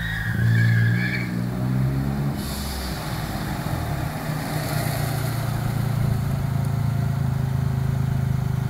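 Daihatsu Charade GTti's turbocharged three-cylinder engine running as the car drives up at low speed, its steady low note getting gradually louder as it nears. A brief high squeal sounds in the first second.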